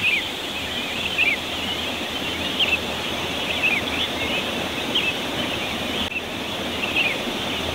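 Morning birdsong: many short, high chirps, roughly one or two a second, over a steady rushing hiss.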